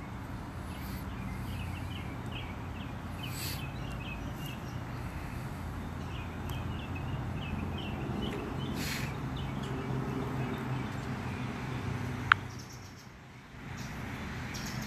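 Honeybees buzzing around an opened tree-cavity hive, a steady low hum, with birds chirping in short runs over it. A single sharp click about twelve seconds in is the loudest sound.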